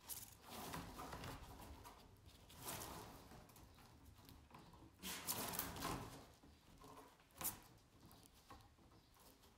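Faint rustling and scraping of soaked number 5 round reed spokes being crimped one after another with a pinching tool, the spokes brushing against each other and the table, with one sharp click about seven and a half seconds in.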